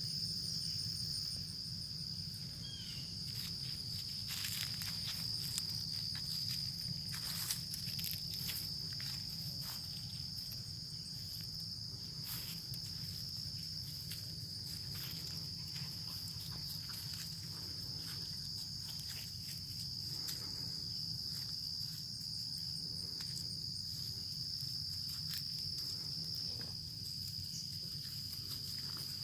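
Steady, high-pitched chorus of insects chirring without a break, with scattered soft clicks and rustles and a low steady hum underneath.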